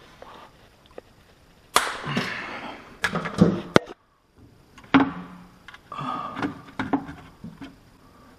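Clatter of hard objects being handled: a string of sharp knocks and clicks, with the loudest knocks about two, three to four, and five seconds in.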